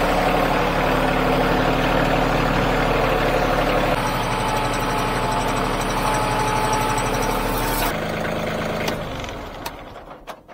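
Bobcat CT2025 compact tractor's three-cylinder diesel engine idling steadily. About eight seconds in its note changes, and then it dies away near the end as the engine is shut off.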